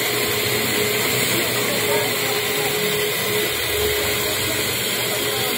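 Bench drill press motor running steadily with a constant hum, drilling into the bushing of a motorcycle engine-support bracket held by hand under the chuck.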